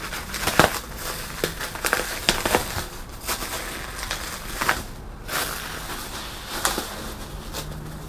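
Clear plastic wrapping being torn and pulled off a metal furnace body, crinkling and crackling in irregular bursts of sharp rustles.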